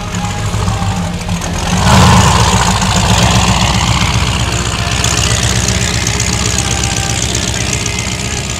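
Skater 46 catamaran powerboat's engines rumbling low, then opened up sharply about two seconds in, loudest there, and running on steady as the boat pulls away, with the rush of water from its wake.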